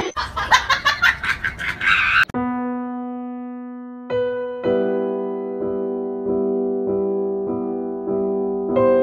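Slow piano music: a low note rings out, then a soft chord is struck again and again, a little over once every half second. Before the piano, a quick run of rapid crackly clicks fills the first two seconds and stops suddenly.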